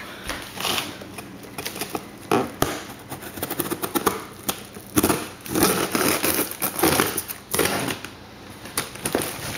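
A cardboard shipping box being opened and packaging handled: irregular clicks, tearing and crinkling noises.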